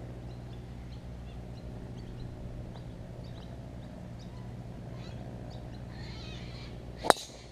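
Small birds chirping faintly, then about seven seconds in a single sharp crack of a golf club striking the ball on a full swing.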